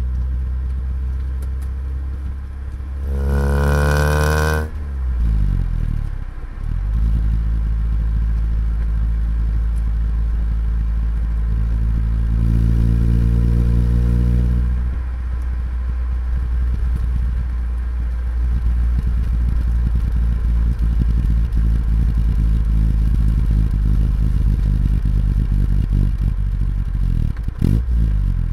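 Exhaust of a Nissan Sunny B11 1.5 GL's 1.5-litre four-cylinder engine, recorded close up while driving. It revs up sharply a few seconds in and drops abruptly at a gear change, then runs steadily. It rises a little again about halfway through before easing off, with another dip near the end as the driver reaches for the gear lever.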